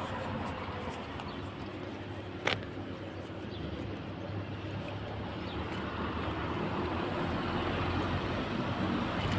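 An engine running steadily with a low hum, and one sharp click or knock about two and a half seconds in.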